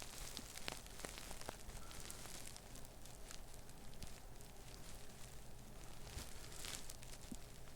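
Faint scattered clicks and rustling of hands handling the plastic parts and circuit board inside a Cricut Maker 3 cutting machine as its motherboard is being freed, with a short rustle near the end.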